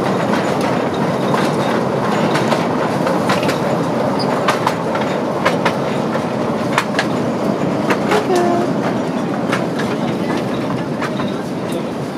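Small open-carriage toy train moving along its track, heard from on board: a steady rumbling ride with scattered sharp clicks and rattles from the wheels and carriages.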